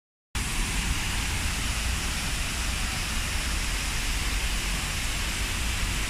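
Water of an artificial waterfall spilling over a rock ledge: a steady rushing hiss with low rumbling underneath. It cuts in abruptly about a third of a second in.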